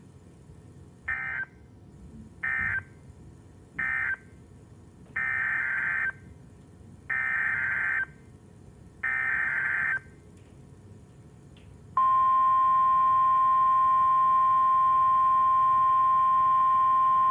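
NOAA Weather Radio Emergency Alert System tones. First come three short SAME data bursts that close the severe thunderstorm warning, then three longer SAME header bursts that open a special marine warning. About twelve seconds in, the steady 1050 Hz warning alarm tone starts and holds.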